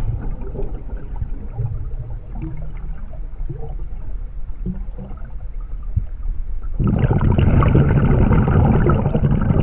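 Muffled underwater rumble with faint scattered clicks, picked up by a camera in a waterproof housing. About seven seconds in, a much louder bubbling rush sets in.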